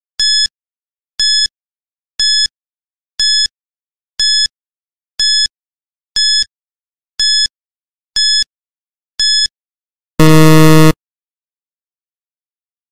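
Quiz countdown timer: ten short, identical high beeps about one a second, then a louder, longer low buzzer a little after ten seconds in, marking time up.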